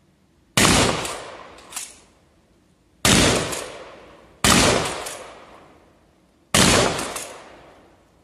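Four shotgun shots, unevenly spaced about one and a half to two and a half seconds apart, each with a long echoing tail. A fainter sharp crack comes about a second after the first shot.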